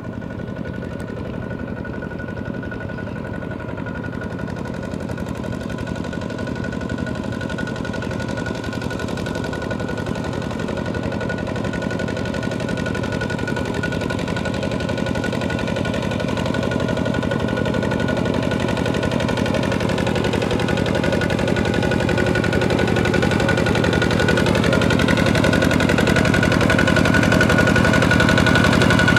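Kubota walk-behind (two-wheel) tractor's single-cylinder diesel engine chugging steadily under plowing load, with a steady high whine over it. It grows louder as the tractor comes closer.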